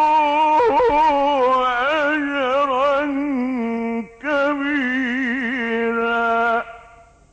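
A male Quran reciter in the drawn-out melodic mujawwad style, holding long vowels with ornamented, wavering turns of pitch. The first phrase breaks off about four seconds in, a second one follows at once, and it ends shortly before the close. It is an old live recording that lacks the highest frequencies.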